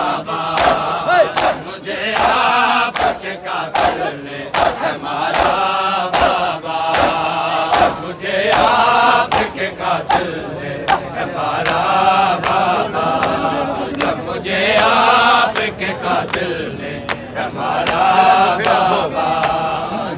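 Crowd of male mourners chanting a noha refrain together in repeating phrases, with a steady beat of sharp slaps from hands striking bare chests in matam.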